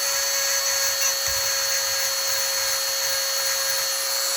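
Electric chainsaw sharpener running steadily with a high whine, its grinding wheel grinding the saw chain's teeth, with a brief low knock about a second in.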